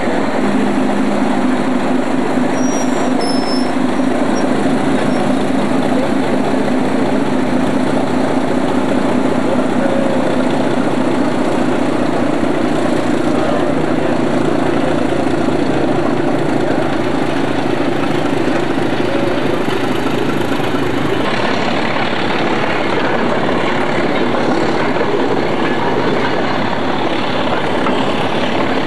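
Diesel engine of an SNCB series 71 shunting locomotive, with its ABC engine, running steadily with a low drone.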